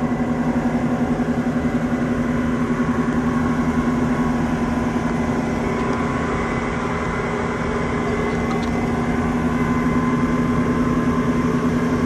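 Passenger boat's engine running steadily under way: a low, even drone with a fine regular pulse and a faint steady high tone above it.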